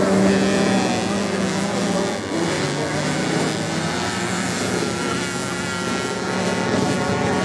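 Racing motorcycle engines running on a beach sand track: a steady engine drone whose pitch dips slightly about two seconds in.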